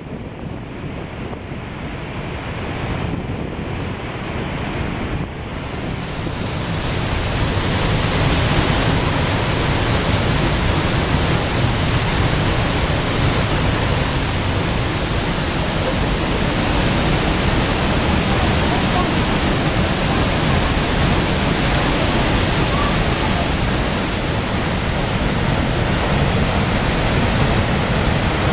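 Steady roar of Niagara Falls, a dense rushing noise of heavy water falling into the gorge. About five seconds in it changes abruptly to a louder, fuller rush.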